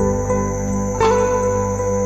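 Background music: plucked guitar notes over a sustained bass and pad.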